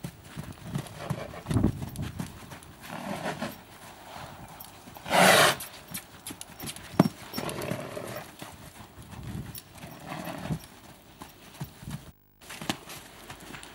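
Hoofbeats of a loose mare cantering over sand, thudding irregularly. About five seconds in there is a loud half-second rush of noise, and the sound cuts out briefly about twelve seconds in.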